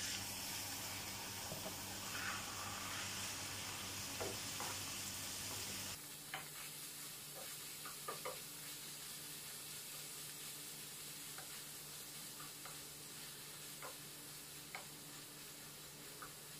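Ground beef sizzling in a hot frying pan as it is tipped in and stirred with a wooden spatula. The sizzle is loud for about the first six seconds, then drops abruptly and goes on quieter under scattered taps of the spatula on the pan.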